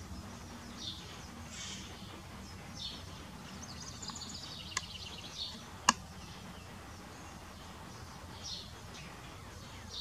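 Backyard birds chirping: short calls every second or two, with a busier run of song about four seconds in. Two sharp clicks come about a second apart near the middle, the second the loudest sound, over a steady low hum.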